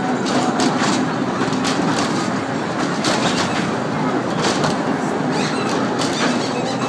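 Fairground noise: a children's train ride running round its track close by, with irregular clicks and clatter over a steady low hum.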